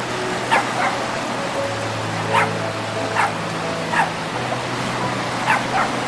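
Dog barking in short, sharp yips, about seven in all, each falling quickly in pitch, with steady background music underneath.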